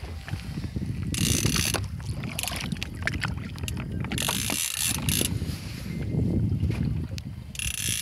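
Fishing reel's ratchet buzzing in short bursts of under a second, several times, over a steady low rumble.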